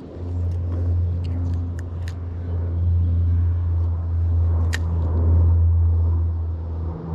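A steady low rumble, with a few faint short clicks over it.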